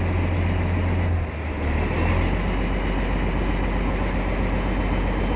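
Boat engine running steadily, a low hum that dips briefly about a second in.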